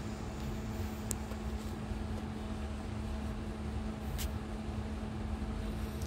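Steady low mechanical hum from a double-decker bus with its systems running: an even drone over a low rumble, with two faint ticks about a second in and about four seconds in.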